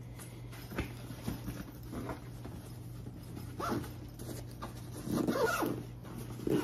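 Zipper on a soft fabric bag being worked, with rustling as things are handled inside it, in several short irregular strokes; the longest and loudest comes a little after five seconds in.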